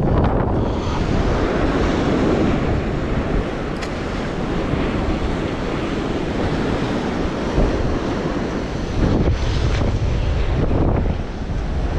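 Ocean waves washing against rocks and strong wind buffeting the microphone, with a louder wave surge about nine seconds in.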